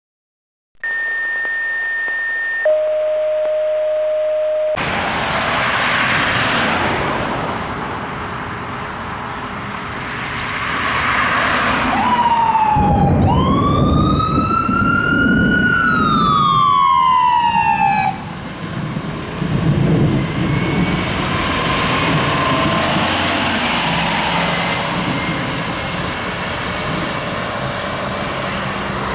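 Two steady electronic tones, a high one and then a lower one, then road and engine noise. An ambulance's electronic siren gives one wail in the middle, falling, rising and falling again before cutting off, and the ambulance's engine and traffic carry on after it.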